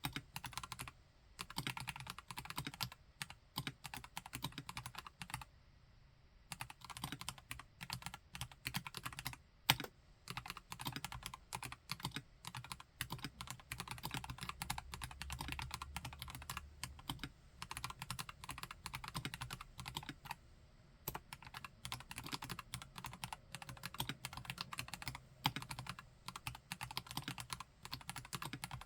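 Typing on a KLC Nori Spring Rider mechanical keyboard fitted with Gateron Yellow Pro V2 linear switches: a fast, uneven stream of keystrokes with a couple of brief pauses and one louder stroke about ten seconds in.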